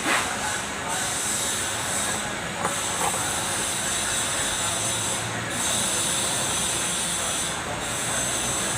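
Kubota Z751 two-cylinder diesel engine running steadily, a constant mechanical noise with a strong hiss and a few light clicks in the first few seconds.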